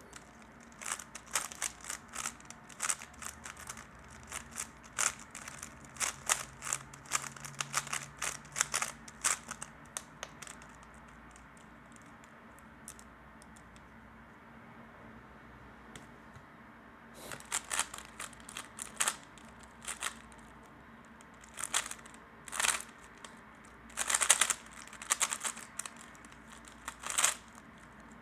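3x3 speedcube being turned fast by hand: rapid plastic clicks and clacks of the layers turning, in two flurries with a pause of several seconds between them.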